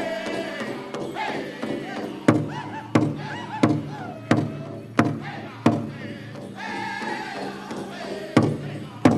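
Powwow drum group singing a chicken dance song. Beats on the big drum come in about two seconds in, steady at roughly one and a half strokes a second, pause while the voices carry on, and return near the end.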